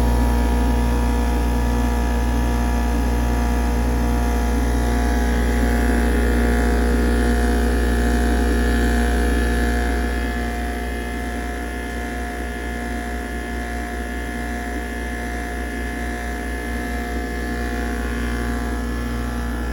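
Craftsman bench grinder's electric motor running steadily, a strong low hum with a steady whine. About halfway through, the low hum weakens and the sound gets a little quieter, but the pitch holds steady.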